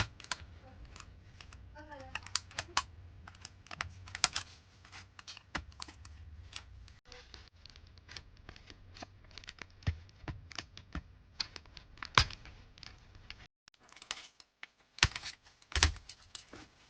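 Irregular plastic clicks and snaps as a laptop keyboard is pried out of its frame with a plastic pry tool, with a few louder snaps near the end.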